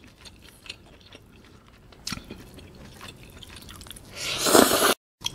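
Close-up mouth sounds of eating: faint chewing clicks, then about four seconds in a loud slurp as a mouthful of rice vermicelli (glass noodles) is sucked in. The slurp cuts off suddenly.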